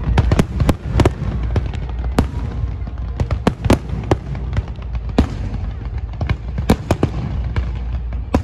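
Fireworks display: aerial shells bursting in a rapid, irregular string of sharp bangs and cracks over a steady low rumble.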